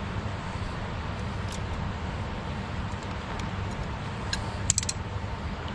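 Steady low rumble of wind on the microphone beside a river, with a few faint ticks and, a little before the end, a quick cluster of sharp clicks as fishing tackle and a mesh keep net are handled.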